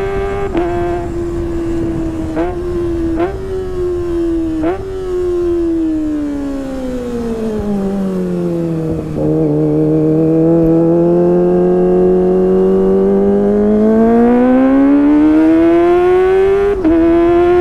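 Kawasaki ZX-25R 249 cc inline-four engine running through a Sportisi Motorsport SRX aftermarket exhaust. The engine holds at high revs with four brief stutters in the first five seconds, then the revs fall away to about half. They hold low for a few seconds, climb steadily back up, and stutter twice more near the end.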